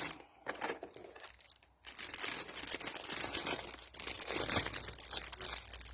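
Crinkling of plastic packaging with light clicks as new piston rings are handled and set down. It goes quiet briefly about a second in, then the crinkling picks up again.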